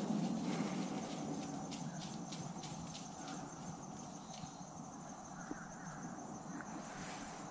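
The rumbling echo of a muzzleloader shot dying away through the woods over the first couple of seconds. Then quiet woodland with insects calling: a steady high buzz and a run of faint ticks about three a second.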